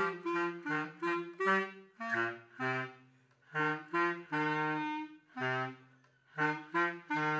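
Clarinet and bass clarinet playing a duet of short, separated notes, the bass clarinet carrying the lower part. The playing stops briefly twice, about three seconds in and again near six seconds.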